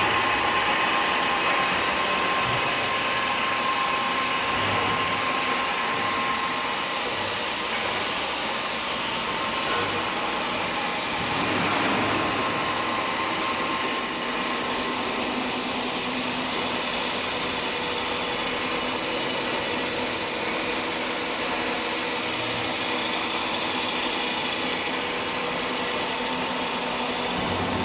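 SUMORE SP2229 turret milling machine running, its 2.2 kW spindle drive giving a steady mechanical whine with several held tones over an even noise.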